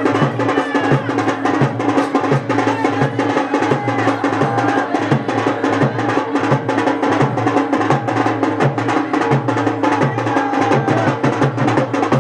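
Loud, fast, steady drumming with dense percussion strokes keeping an even beat.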